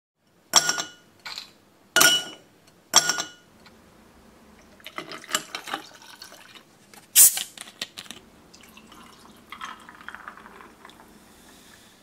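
Ice cubes clinking into an empty glass, four sharp ringing clinks, then shochu poured over the ice with further clinks and one louder knock, the pour trickling and gurgling as the glass fills.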